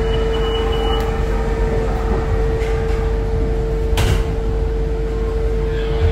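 Ocean Express funicular car's sliding doors closing, ending in a sharp knock about four seconds in as they shut, over a steady cabin hum; a high steady tone stops about a second in.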